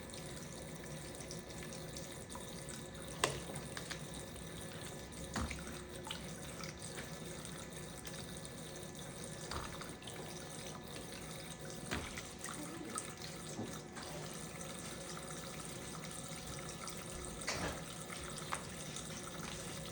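Toy sink's tap running a steady stream of water, with a few light knocks and clinks as a cockatoo plays in it.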